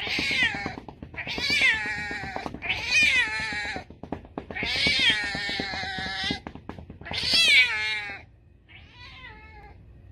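A cat meowing in a series of long, drawn-out wailing calls, about six in all, each bending in pitch; the longest comes in the middle and the last is fainter.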